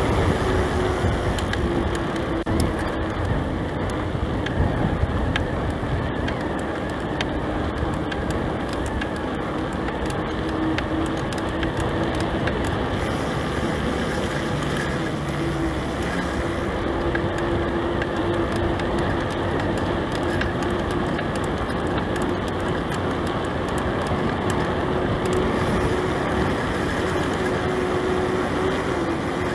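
Mountain bike rolling along a track: tyre noise and wind on the microphone with many small rattling clicks, and a steady hum that drifts a little in pitch.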